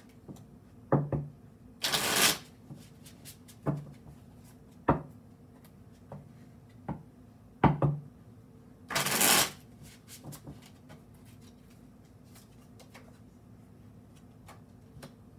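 A tarot deck being shuffled by hand. There are two short riffling bursts of cards about seven seconds apart, with several sharp knocks in between, and light card clicks toward the end.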